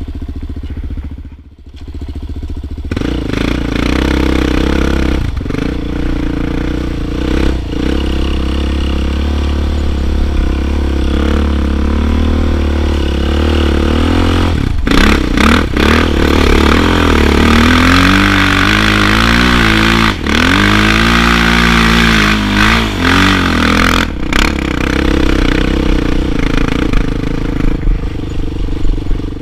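Suzuki LTZ sport quad's single-cylinder four-stroke engine running under throttle on sand trails. It picks up strongly about three seconds in, with a few brief throttle cuts. About two-thirds of the way through, the revs rise and fall several times.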